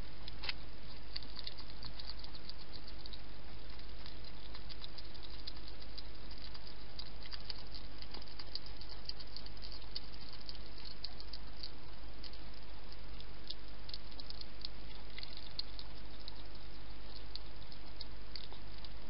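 Wild hedgehog eating from a bowl: a continual run of quick, irregular clicking chews and crunches, over a steady low hum.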